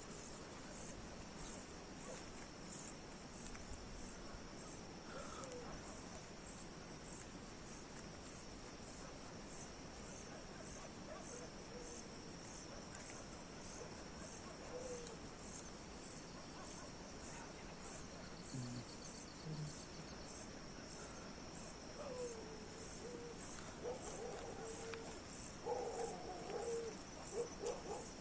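Crickets chirping in a steady, even rhythm of about two chirps a second. A few short, lower calls come in near the end.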